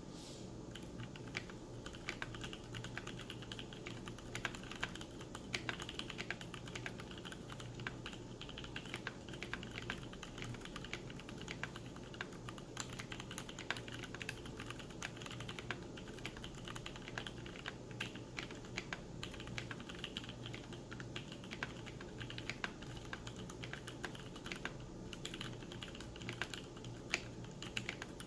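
Continuous fast typing on a Duck Jetfire keyboard: a dense, irregular stream of key clicks with no pauses.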